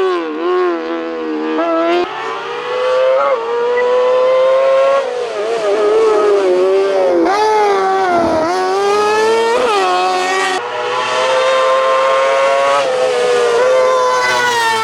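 Hillclimb race car's engine under hard acceleration, revving up and dropping back repeatedly as it shifts gears and lifts off for corners.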